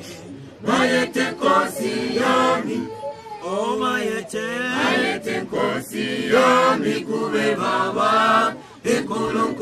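A church choir of mixed voices singing a hymn together without instruments, with a few hand claps among the singing.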